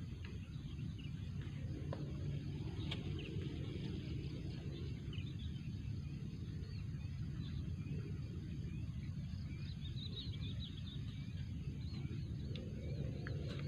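Outdoor ambience: a steady low rumble, with many short, high bird chirps scattered over it, busiest about ten seconds in.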